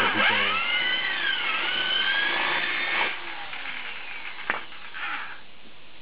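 Corded electric drill with a spade bit boring through a wood block: the motor's whine drops in pitch as the bit bites into the wood and climbs back up, then stops about three seconds in. A single sharp click comes a little later.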